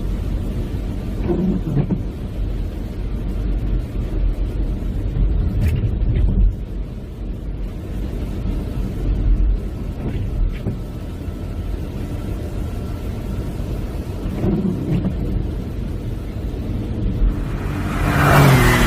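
Car cabin noise while driving through rain on wet roads: a steady low road rumble with a faint hiss above it. Near the end comes a louder rushing swell.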